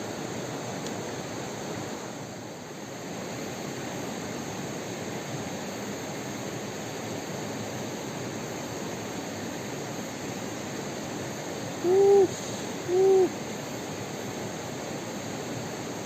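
Steady riverside ambience: a constant rush of water with a faint insect drone. Near the end, two short hooting notes about a second apart stand out as the loudest sounds.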